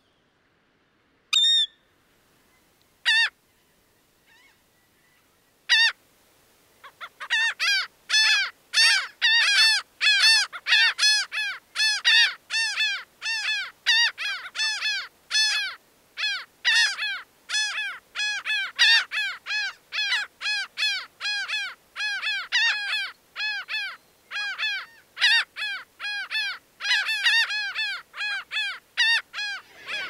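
Laughing gull calls: three single calls spaced apart in the first six seconds, then from about seven seconds a long, unbroken run of the laugh-like call, short notes each dropping in pitch, about three a second.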